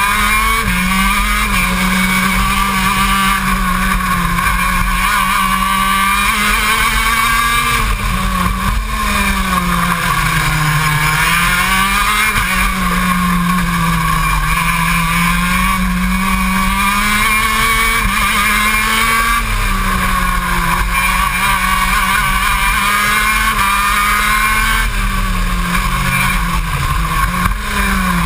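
125cc two-stroke engine of a KZ2 gearbox kart, heard from on board at racing speed, its revs rising and falling over and over as it accelerates out of corners and drops back on braking.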